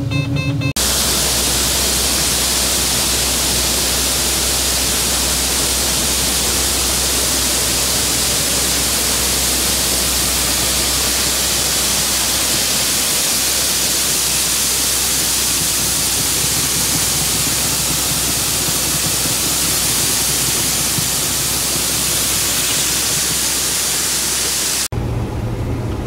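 A steady, even rushing hiss over a low hum, starting abruptly about a second in and cutting off just before the end.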